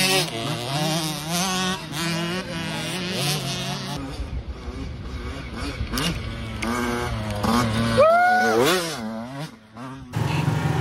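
Youth dirt bike engines revving as riders pull away and ride the course, the pitch climbing and dropping as they accelerate and shift. One bike revs up loudly about eight seconds in.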